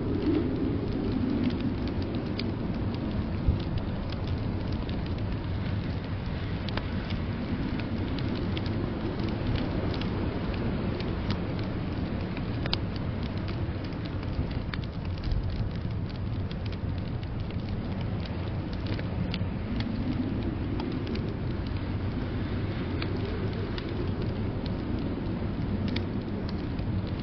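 Wood fire crackling with scattered sharp pops, over a steady blizzard wind rush whose low rumble swells and fades in slow gusts.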